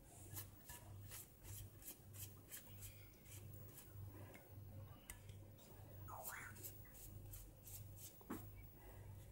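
Faint soft dabbing and brushing strokes, about three a second, as a pastry brush spreads egg wash over phyllo börek rolls on a metal baking tray. A low pulsing hum runs underneath.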